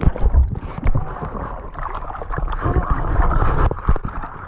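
Water splashing and gurgling close to the microphone, with scattered knocks and bumps against a kayak.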